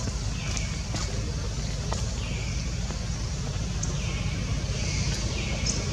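Steady low rumble of a motor vehicle engine running, with a faint higher hiss that swells and fades a few times.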